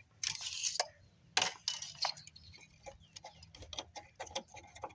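Plastic ignition coil being worked out of its spark plug well by hand, with clicks and scrapes: a short scraping rustle just after the start, a sharp click about one and a half seconds in, then scattered light ticks.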